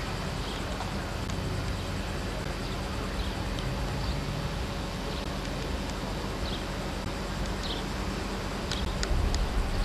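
Steady outdoor background noise with a low rumble on the microphone and a few faint short high chirps.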